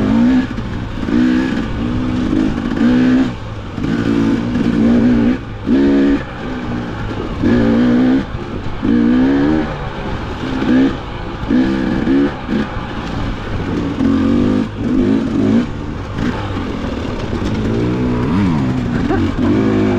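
Two-stroke dirt bike engine revving in repeated short bursts, roughly one every second or so, its pitch climbing and dropping as the throttle is opened and rolled off.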